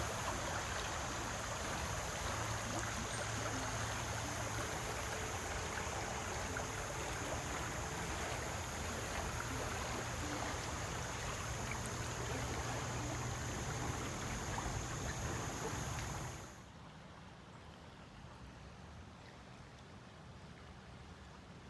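Steady rushing of flowing water, like a stream, with a steady high hiss above it. It cuts off suddenly about three quarters of the way through, leaving a much quieter background.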